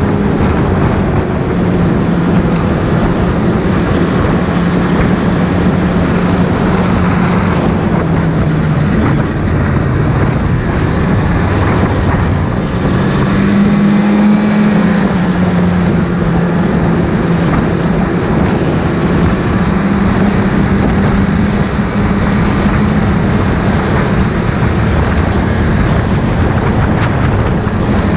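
Snowmobile engine running steadily under way, its pitch rising briefly about halfway through and then settling back.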